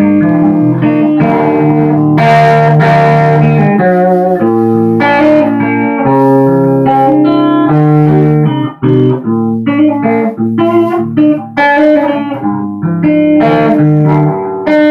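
Semi-hollow-body electric guitar played through a Marshall amplifier: held chords mixed with single-note lines, with a brief break in the playing about nine seconds in.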